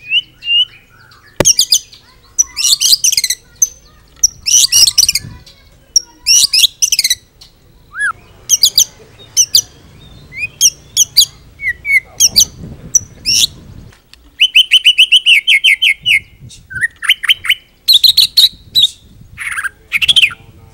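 White-rumped shama singing loudly: a varied string of short phrases of whistles, trills and quick chattering notes with brief pauses between them, and a run of rapid repeated notes about two thirds of the way through. The song is packed with fill-in phrases (isian), the borrowed, mimicked material prized in a shama's song.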